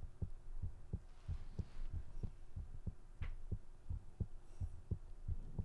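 A low, even thumping pulse, about three beats a second, over a faint steady hum: a heartbeat-like beat in the film's background score.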